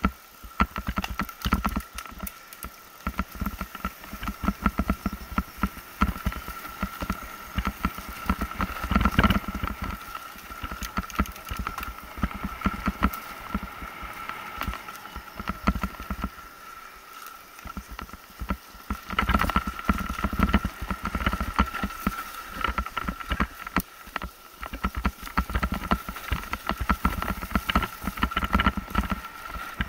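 Mountain bike rattling and knocking as it rides fast down a rough dirt trail, with a steady high whine running underneath. The rattling grows louder about nine seconds in and again from about nineteen seconds, and eases briefly just before that.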